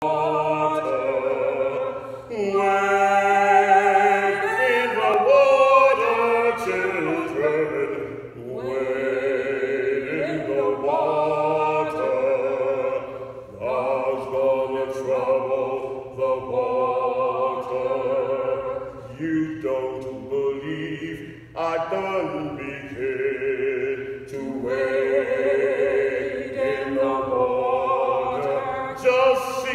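A woman's voice singing a slow melody without accompaniment, in long held phrases with vibrato and short breaks between them.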